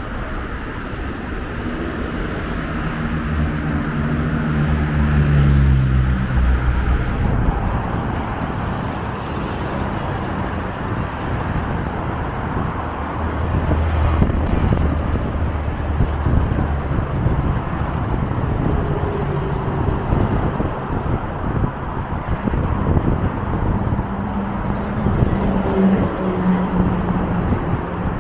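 Steady road traffic passing on a multi-lane avenue. A heavy vehicle's engine hum rises and falls a few seconds in. About halfway, the low diesel drone of a Scania Irizar PB coach passes close by.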